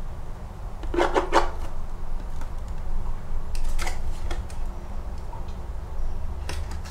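Foil-lined cardboard induction ramen pot crinkling and creaking as it is flexed and turned over in the hands, in short bursts about a second in, near four seconds and near the end.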